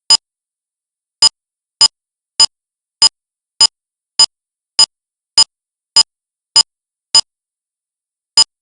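Electronic phone key-press beeps as a number is dialed on a cell phone. Thirteen short, identical, high beeps come with silence between them. Most are about 0.6 s apart, with a longer pause after the first and before the last.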